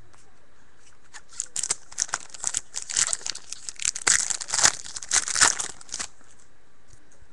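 A hockey card pack wrapper being torn open and crinkled by hand: a run of sharp crackling rustles for a few seconds.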